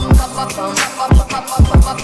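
Hip hop music with deep, booming kick drums and sharp snare hits in a steady beat, and a repeating melodic line over it.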